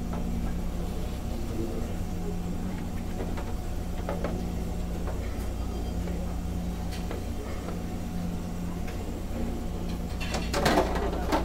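Steady low hum of the ferry's machinery underway, with scattered faint clinks of tableware and a short burst of dishes and trays clattering about ten seconds in.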